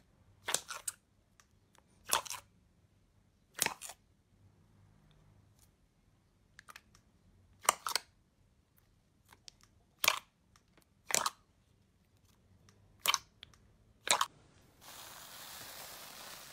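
Thick white slime being pressed and poked by hand, giving about eight sharp pops a second or two apart as trapped air bursts out. Near the end it switches to a steady soft hiss as a bubbly clear slime is worked in its tub.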